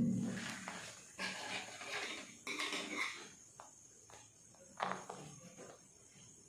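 Comb and scissors working through an Angora rabbit's matted, clumped fur: irregular scratchy rustling for a couple of seconds, then a few short sharp snips or clicks.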